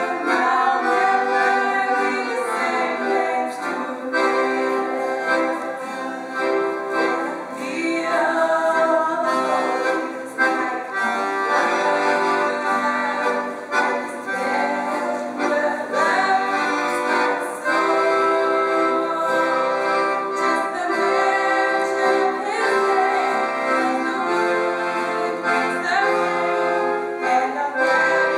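A girl and an older woman singing a song together, accompanied by a piano accordion.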